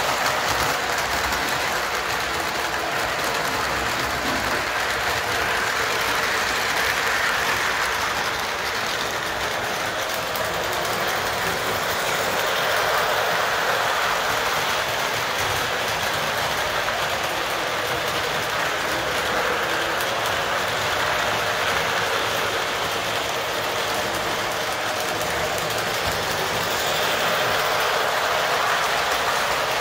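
Model trains running steadily around the layout: a continuous rolling rattle of metal wheels on the track.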